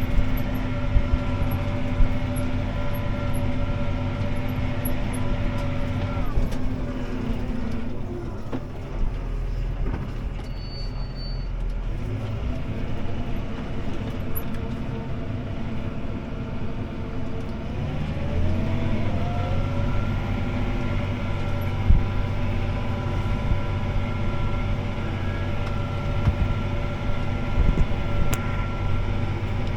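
CLAAS ARION 650 tractor's six-cylinder diesel engine running steadily under load, heard from inside the cab while pulling a disc harrow. The engine slows about six seconds in, then climbs back up over several seconds and runs steadily again, with occasional knocks and rattles.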